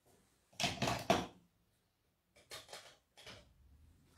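Craft supplies handled on a worktable: a quick cluster of knocks and scrapes about half a second in, then a few faint clicks.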